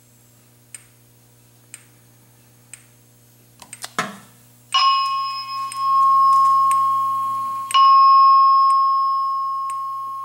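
A fire alarm system chime struck twice at the same pitch, about three seconds apart, each ringing and slowly fading, after a few faint ticks about once a second. A low electrical hum stops at the second strike.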